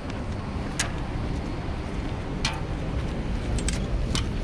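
Electric commuter train at a station: a steady low rumble and noise, with four short sharp clicks.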